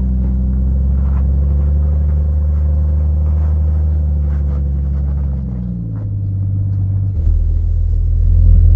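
Jeep Cherokee XJ rock crawler's engine running with a low, steady rumble as it crawls up a rock ledge, the note dropping off around five or six seconds in. Near the end it gives way abruptly to a different low vehicle rumble heard from inside a cab.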